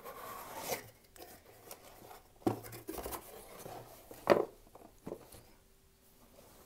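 A cardboard mystery box and its packing being handled: a second of rustling, then a few knocks, the loudest and sharpest about four seconds in.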